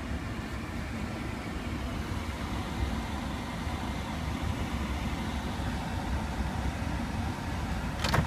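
Steady low rumble and hiss inside a car's cabin, with no distinct events.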